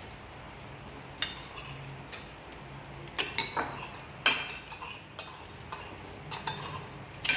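Metal spoons clinking and scraping against ceramic plates and a bowl as people eat: a string of separate sharp clinks, the loudest about four seconds in.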